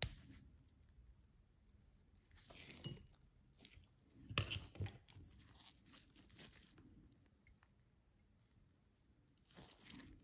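Faint, scattered clicks and rustles from handling small tools and watch parts at a watchmaker's bench, loudest about halfway through.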